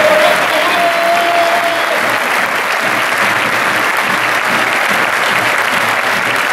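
Large football stadium crowd applauding, a dense, steady clatter of many hands. A single held note sounds over it at first and fades about two seconds in.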